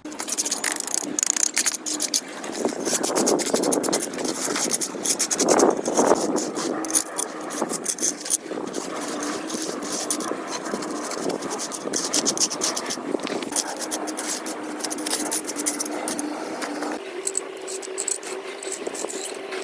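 Repeated scraping and clicking strokes, irregular and continuous, over a faint steady hum.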